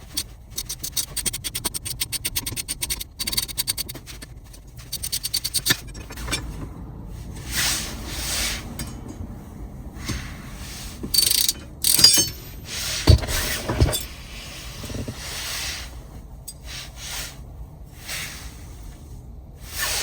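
A ratcheting driver with a Torx T20 bit clicks in a fast, even run as screws are backed out of the bracket over the shift interlock solenoid on a Crown Victoria steering column. After that come scraping and clinking of metal parts being handled, with two sharp knocks in the middle.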